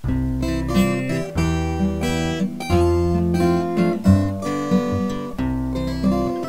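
Background music: a strummed acoustic guitar track.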